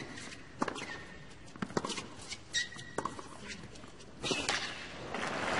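Tennis rally on a hard court: sharp racket-on-ball hits and ball bounces every half second or so, with squeaks of players' shoes. Crowd applause swells up near the end as the point finishes.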